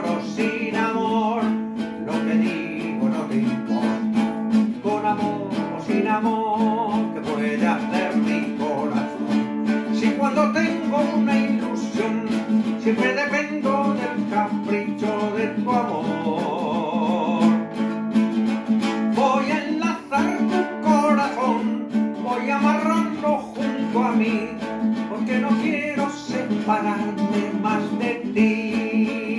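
A man singing a Spanish-language song with vibrato, accompanying himself on a nylon-string classical guitar.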